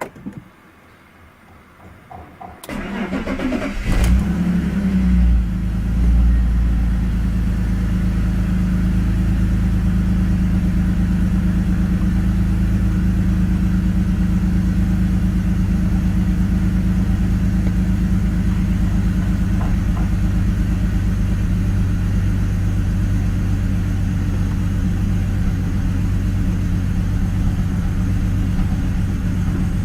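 BMW E46 330i's M54B30 3.0-litre straight-six being cold started: a few clicks, then the starter cranks it about three seconds in and it catches about a second later, the revs rising briefly before settling into a steady cold idle that the owner calls rough.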